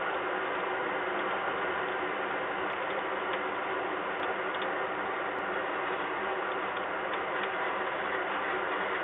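Steady rain heard through a webcam microphone: an even hiss of falling rain with faint ticks of drops on the nest box and metal grating.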